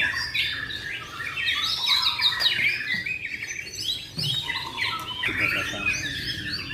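White-rumped shama (murai batu) singing a continuous, fast-changing song of short whistled and chirped notes.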